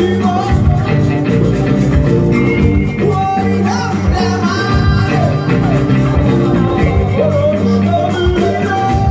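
Live band playing with electric guitars, bass and drums, and a voice singing over them.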